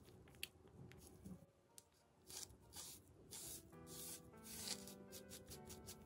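A small sponge dabbing and rubbing paint onto a cardboard diorama wall, giving short soft scratchy strokes, under quiet instrumental background music whose notes come through more clearly from about halfway.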